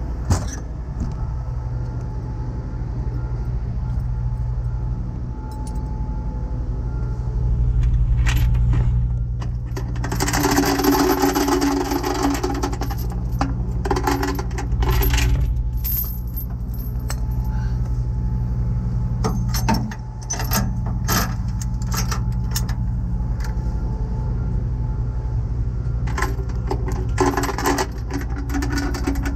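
Steel tow chains jangling and clanking as they are handled at the back of a tow truck, in several spells, the longest about a third of the way in and another near the end, over the steady low hum of an idling truck engine.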